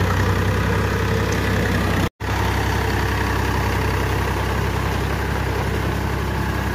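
Powertrac tractor's diesel engine running steadily as it works a rotavator through flooded paddy mud. The sound cuts out for a moment about two seconds in.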